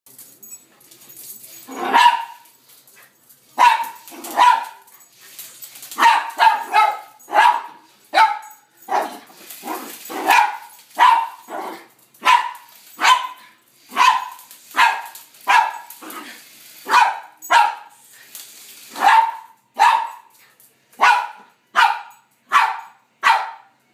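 Small black poodle barking over and over at a toy helicopter, short sharp barks about one every second or less, some in quick pairs.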